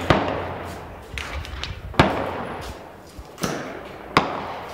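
Gunshots on an outdoor range: several sharp reports, each trailing off in a long echo. The loudest comes about two seconds in, with others right at the start and near the end.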